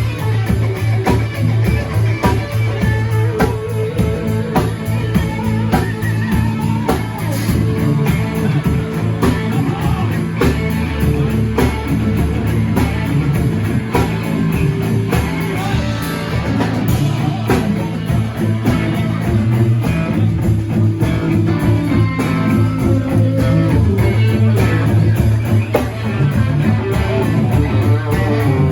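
Live rock band playing, with electric guitar to the fore over bass and drum kit.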